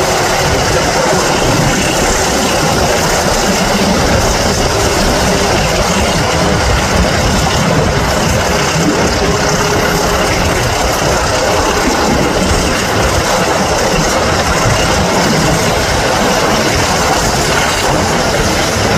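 A heritage train running at speed, heard from an open carriage window: a steady noise of wheels on rail and the diesel engines of Class 24 24081 and Class 26 5310 working at the head, with air rushing past.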